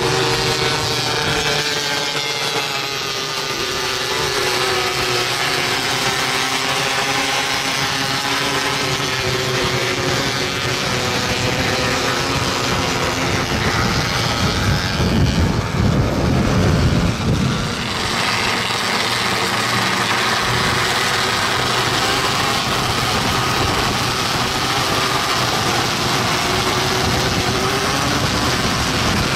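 Several 270cc micro sprint cars racing on a dirt oval, their small high-revving engines rising and falling in pitch as they pass and lift off for the turns. A louder low rumble lasts a few seconds in the middle.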